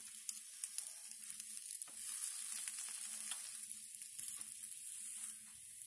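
Butter-coated bread rolls sizzling on a hot stovetop grill pan: a steady high hiss with small scattered crackles.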